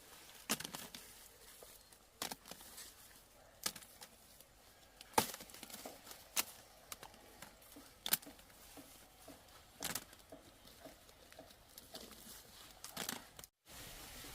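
Irregular sharp snaps and tearing crackles, roughly one every second or two, with faint rustling between them, typical of crop plants being torn or broken.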